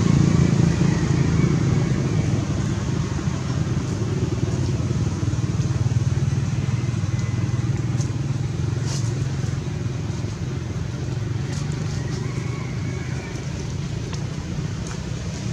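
A motor vehicle engine running steadily, a low hum that eases slightly toward the end.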